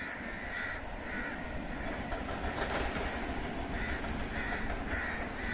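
Steady rushing noise of sea waves, with a bird calling in short repeated notes: twice in the first second or so, then four times over the last two seconds.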